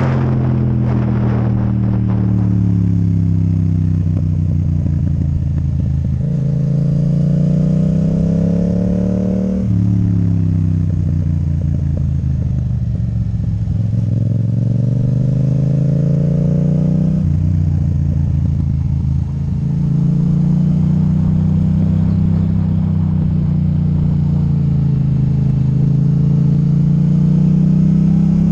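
Yamaha MT-07 parallel-twin engine running loud through an Akrapovic titanium exhaust with the dB killer removed. Its pitch falls briefly at the start, then climbs steadily under throttle. It drops suddenly at each upshift, about ten and seventeen seconds in, and climbs again after each.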